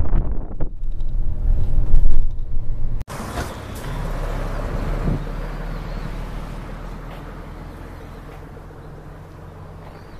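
Route bus heard from inside the cabin: engine and road noise, loud for the first few seconds, then after a sudden cut about three seconds in a steadier, quieter engine hum that slowly fades.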